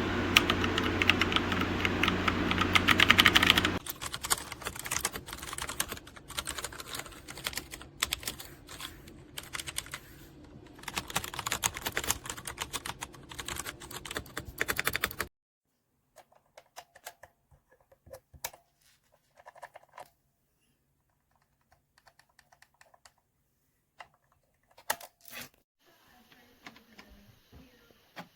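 Rapid typing on a MageGee 75% mechanical keyboard with linear red switches: a fast, dense run of key clicks, loudest for the first few seconds. The typing stops about halfway through, leaving only a few scattered faint key presses.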